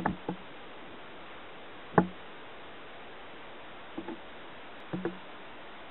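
Dull knocks and thumps from someone passing through a sliding glass patio door onto a wooden deck, over a steady hiss. There is a pair of knocks at the start, the loudest single knock about two seconds in, and two more pairs about a second apart near the end.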